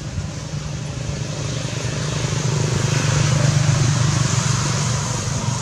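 A motor vehicle's engine passing by, growing louder to a peak about three seconds in and then easing off.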